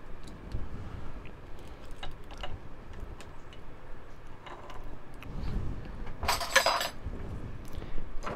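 Small metal clinks and taps from handling flatware pieces, a knife handle and a spoon, with tweezers on a soldering block. A brief jangling clatter of metal comes a little past the middle.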